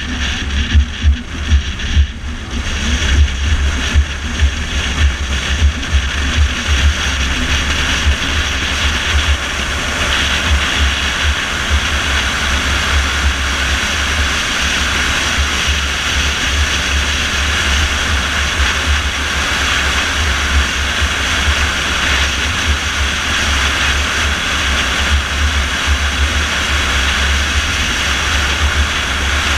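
Car driving at road speed, heard from inside the cabin: a steady roar of engine, tyre and wind noise over a deep rumble, which pulses more unevenly during the first several seconds.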